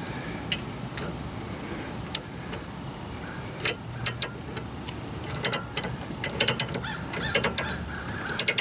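Ratchet handle of a scissor jack clicking: a few scattered clicks at first, then quicker, irregular clicking through the second half.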